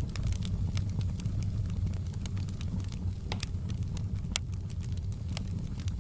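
Wood fire in a fireplace crackling, with sharp pops scattered irregularly through it over a steady low rumble; the two loudest pops come about three and four and a half seconds in.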